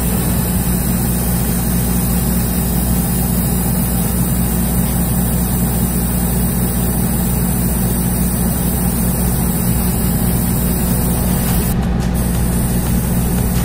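Spray-painting equipment running steadily for the primer coat: a constant motor hum under an even rush of air.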